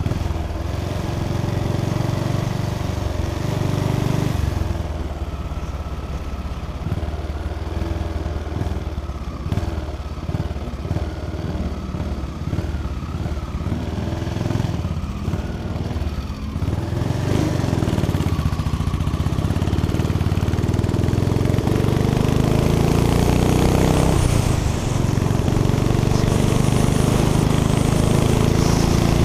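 Motorcycle engine heard from the rider's seat while riding. It runs lower and unevenly for the first half, then accelerates, its pitch climbing through one gear and then the next after a shift about two-thirds of the way in.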